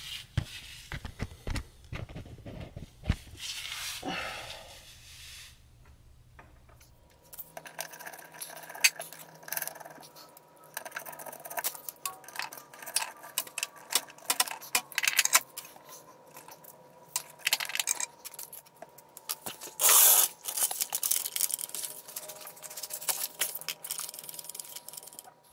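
Metal hand tools clinking, rattling and scraping in irregular clicks and knocks during work on the underside of a car's rear differential, with a louder rushing burst about twenty seconds in.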